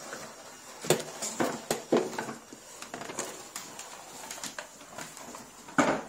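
Knocks and clunks of a Numatic Henry cylinder vacuum being handled with its motor not running: the metal wand and hose knocking and the cylinder moved over carpet. A few sharp knocks come about a second in, around two seconds, and the loudest just before the end.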